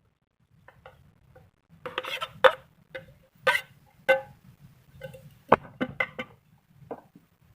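Metal cookware being handled: about a dozen irregular clinks and knocks, each with a brief ring, starting about half a second in, the loudest between two and six seconds.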